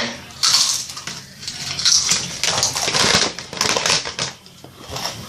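Dense, irregular crackling and crunching clicks close to the microphone, in uneven swells.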